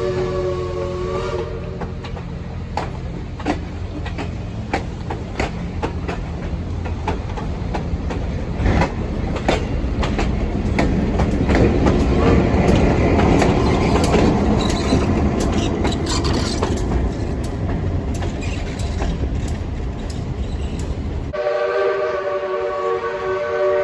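Passenger cars of a steam excursion train rolling past close by: a steady low rumble with wheels clicking over rail joints, swelling in the middle. The locomotive's chime steam whistle sounds in the first second and again near the end.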